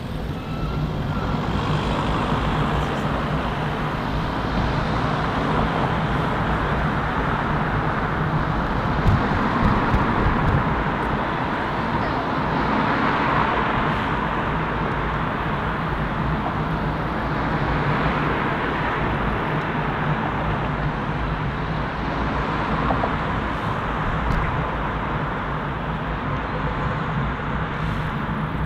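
Steady city road traffic: a continuous rush of car and truck engines and tyres, swelling now and then as vehicles pass.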